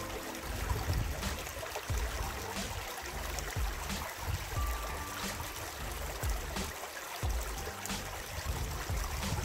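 Small brook flowing: a steady trickling rush of water with an uneven low rumble underneath.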